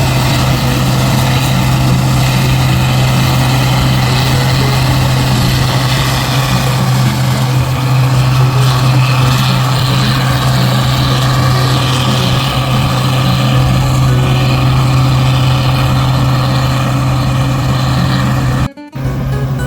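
Combine harvester running steadily while harvesting corn, a constant low engine hum under machinery noise. The sound cuts out for a split second near the end.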